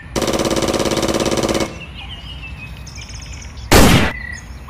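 Toy gun firing sounds: a rapid, pulsing electronic buzz of automatic fire lasting about a second and a half, then a single loud gunshot about a second before the end. Birds chirp faintly in the background.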